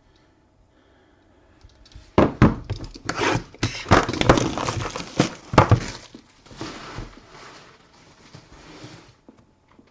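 A sealed trading-card box and its pack being opened by hand: cardboard knocks and thumps, with crinkling and tearing of the wrapper. The handling starts about two seconds in, is loudest over the next few seconds and fades near the end.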